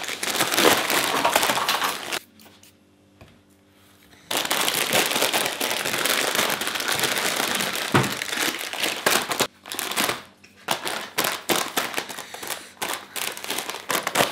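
Plastic instant-noodle packets crinkling and rustling as a multipack is opened and the individual packets are pulled out and handled, with a brief quieter pause about two seconds in.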